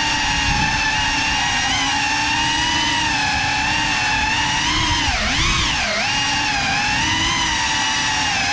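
Motors of a Cinelog 35 ducted FPV cinewhoop quadcopter on a 6S battery whining steadily in flight. The pitch dips and climbs back twice, around five and six seconds in, as the throttle changes.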